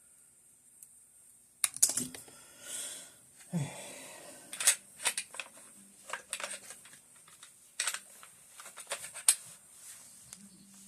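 Metal rifle parts of an AK-pattern rifle clicking and clacking as they are handled and fitted, with short scrapes between. The irregular sharp clicks begin about a second and a half in.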